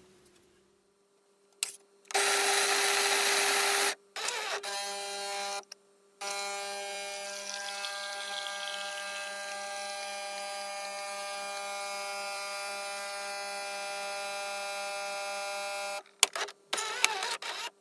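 Automatic bean-to-cup coffee machine making a coffee. A loud grinding burst comes about two seconds in, then a short whirr, then the pump runs with a steady hum for about ten seconds while coffee pours from the twin spouts. It ends with a few clicks and knocks.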